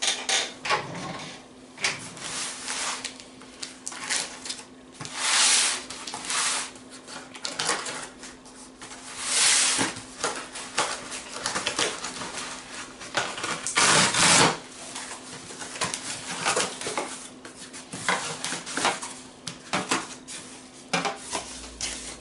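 Cardboard box being cut and pulled open with a knife: a run of scrapes, rips and knocks, with three longer, louder rasping tears spread through it.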